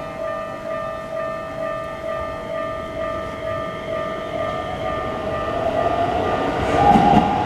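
Japanese level-crossing warning bell ringing in a steady repeating pattern. From about halfway, a Keikyu Main Line train's running noise rises under it and is loud near the end as the train reaches the crossing.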